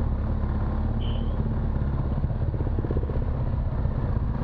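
BMW R1200 GS Adventure's boxer-twin engine running steadily at low revs as the bike rolls slowly along.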